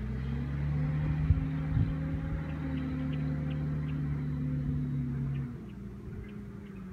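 An engine running at a steady, unchanging pitch, its note stopping about five and a half seconds in, over a low wind rumble on the microphone.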